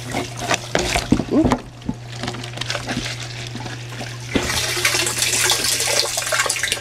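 Knocks and short plastic creaks as the drain grate and red plastic barrel lid are handled, about a second in, over a steady low hum. Later, a rushing, water-like hiss rises for about two seconds near the end.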